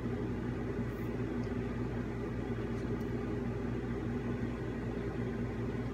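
An old air conditioner running: a steady, noisy hum made of several low tones, with a few faint clicks.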